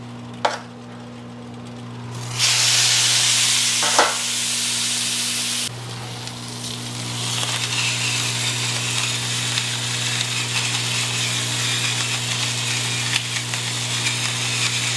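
Steak searing on a hot grill after being brought to about 110 degrees inside. A loud sizzle starts about two seconds in and cuts back suddenly a few seconds later. It then builds again into a steady sizzle.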